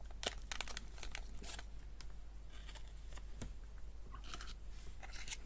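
Small clear plastic zip-lock bag of spare vape seals crinkling and rustling in the fingers, with quick light clicks, busiest in the first second and a half and then sparse.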